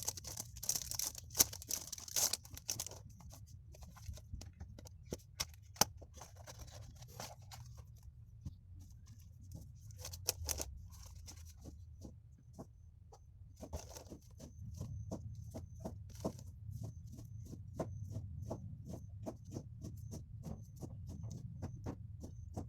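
Hands handling paper and plastic packaging on a desk: rustling in bursts with many light clicks and taps, over a low steady hum.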